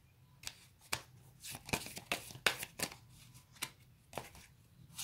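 Tarot cards being handled and shuffled on a table, giving about ten irregular sharp snaps and flicks of card against card.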